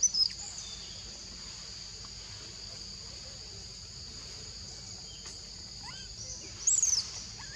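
A steady, high-pitched insect chorus, broken twice by short, loud, high squeals from young macaques at play: one right at the start and one just before the end.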